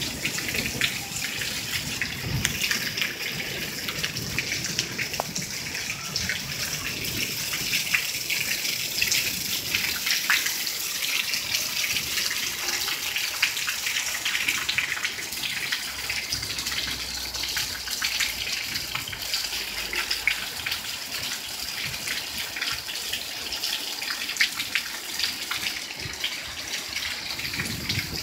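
Steady rain: an even hiss dotted with many small drop ticks.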